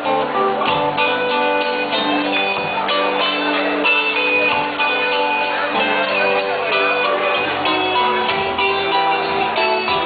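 Live folk band playing an instrumental passage: acoustic guitar and electric bass, with many quick plucked notes.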